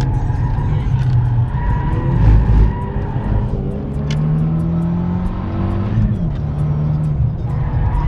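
Renault Mégane R26's 2.0-litre turbocharged four-cylinder engine pulling hard around a wet race track, heard from inside the cabin with tyre noise underneath; its pitch climbs for a couple of seconds and drops suddenly about six seconds in, as at a lift or gear change.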